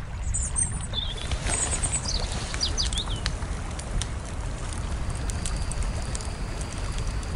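Outdoor nature ambience: a steady low rumble with a few bird chirps in the first three seconds and scattered light clicks, then a faint steady high whine from about five seconds in.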